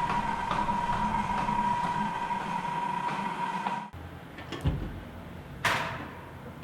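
Freevision VILTA-G gimbal's brushless motors whining in performance mode, a steady high tone over a low hum, picked up by the mounted GoPro Hero 5's built-in microphone. It cuts off abruptly about four seconds in, leaving quieter room sound with two sharp knocks.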